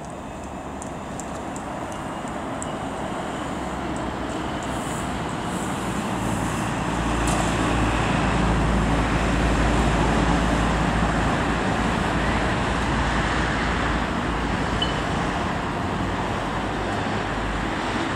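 Road traffic passing on a city street. The tyre and engine noise builds to its loudest about eight to eleven seconds in as vehicles pass close, then eases off.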